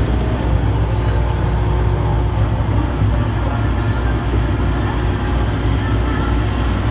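Diesel engine of a Hitachi ZX140W-5B wheeled excavator running steadily as the machine is driven, heard from inside the cab with a deep, even rumble.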